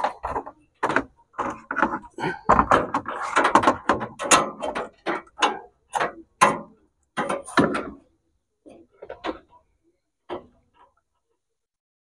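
Irregular knocks, clicks and clattering from hands handling a water dispenser's metal frame, tubing and pump fittings. The knocks thin out after about eight seconds. No pump motor is heard running.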